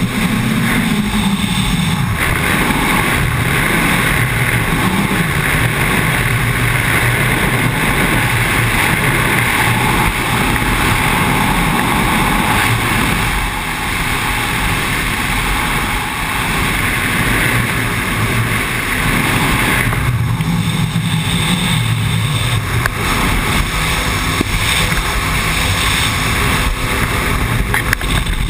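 Speedboat running at speed on open water: a steady engine drone mixed with rushing water from the hull and wake, and wind buffeting the microphone.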